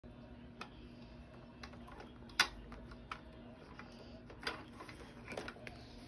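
A few separate sharp clicks and knocks from handling an upright vacuum cleaner and its power cord while the motor is off. The loudest knock comes about two and a half seconds in, over a faint steady hum.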